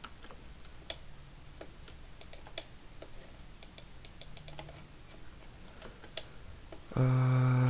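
Scattered computer keyboard keystrokes and mouse clicks, quiet and irregular. Near the end a loud, steady humming tone starts suddenly and holds.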